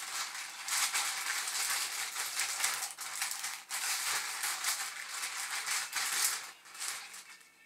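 Sliced zucchini being shaken hard in a plastic zip-top bag: the bag crinkles and the slices rattle against each other in quick, uneven strokes. The shaking dies away near the end.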